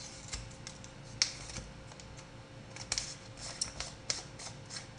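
Irregular sharp plastic clicks and crackles: the cap and seal of a new, still-unopened ground black pepper shaker being worked open by hand.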